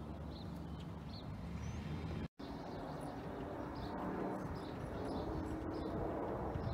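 Distant aircraft passing high overhead: a low, steady rumble, with small birds chirping over it. The sound drops out briefly about two seconds in.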